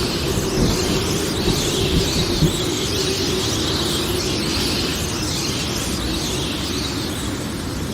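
Storm ambience: steady rain noise with a faint sustained low tone underneath and no thunderclap.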